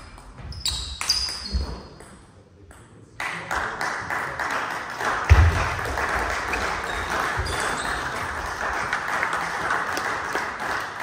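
Table tennis ball clicking off bat and table with short high-pitched pings for the first two seconds. About three seconds in, a steady rushing noise starts abruptly and runs on, with one low thud a little after five seconds.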